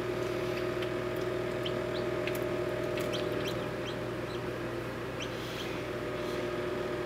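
Newly hatching silkie chick peeping: many short, faint high peeps scattered through, over a steady low electrical hum.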